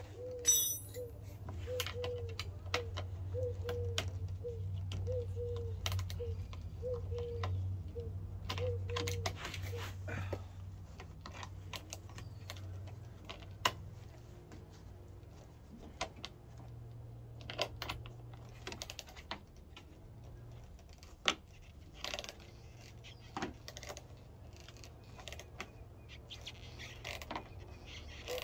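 Scattered clicks and clinks of hand tools and fasteners as the front lip spoiler is unbolted from under a Mazda Miata's front bumper. A short pitched note repeats over and over through the first ten seconds and comes back near the end, over a steady low hum.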